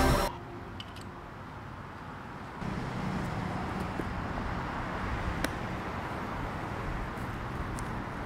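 Steady outdoor background hum and hiss, stepping up in level about two and a half seconds in, with a couple of faint ticks.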